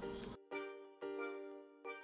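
Quiet background music of struck, ringing notes that fade away. New notes come in about half a second in, at about a second, and again near the end.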